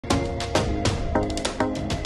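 Intro music with a steady beat: a sharp hit with a chord about twice a second.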